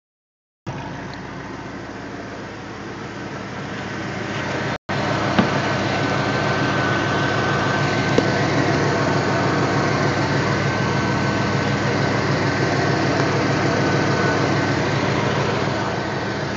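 2005 Pontiac GTO's LS2 V8 running at idle through SLP long-tube headers and a Corsa Sport exhaust, a steady fast pulsing, with a thin steady high tone through the middle. The owner takes the sound for an exhaust leak at the headers.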